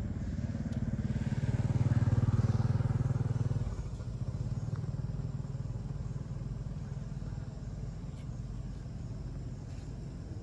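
A motor vehicle passing on the nearby road: a low engine hum that swells to its loudest about two to three seconds in, then fades to a quieter steady rumble.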